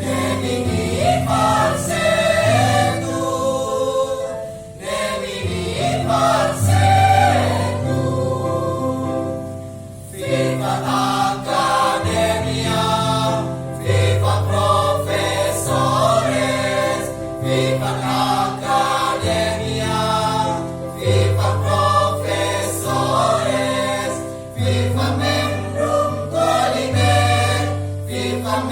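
A choir singing a song, with low held accompaniment notes beneath that change every two seconds or so.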